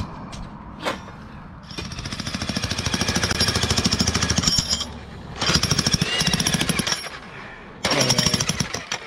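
Bolte electric demolition hammer (jackhammer) breaking up the concrete footing around a steel fence post, in three runs of rapid hammering. The first run starts about two seconds in and lasts about three seconds, and two shorter runs follow.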